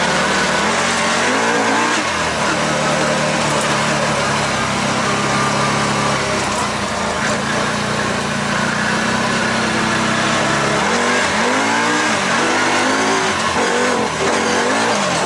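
Vehicle engine running steadily while driving over rough ground, its pitch rising and falling as it revs up and down about a second in and several times near the end.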